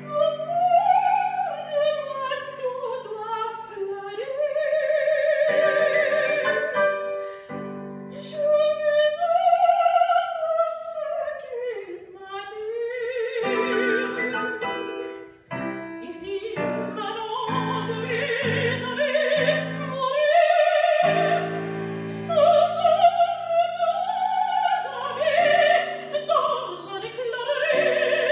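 Soprano singing an operatic aria with strong vibrato, held notes rising and falling and climbing to a high phrase near the end, accompanied by piano chords on a digital keyboard.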